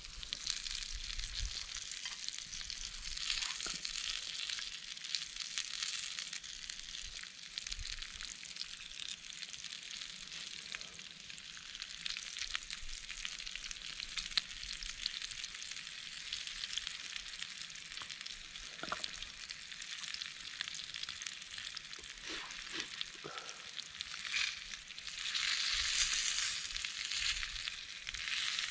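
Breakfast food frying and sizzling in a pan: a steady hiss with small pops, louder for a couple of seconds near the end.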